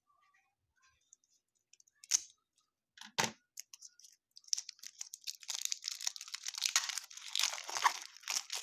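A trading-card pack wrapper being crinkled and torn open by hand, a dense crackling that starts about four and a half seconds in. It is preceded by two sharp knocks at about two and three seconds.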